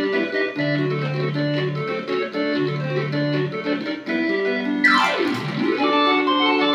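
Yamaha YC-20 combo organ played with a short, piano-like voicing: quick chords over two held low bass notes, then a fast sweep down the keys and back up about five seconds in.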